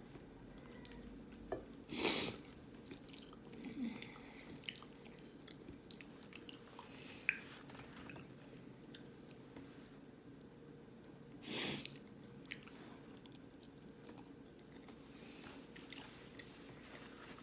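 A person chewing and biting food close to the microphone, with small wet mouth clicks, and two short, louder noisy sounds about two seconds in and again a little before the two-thirds mark.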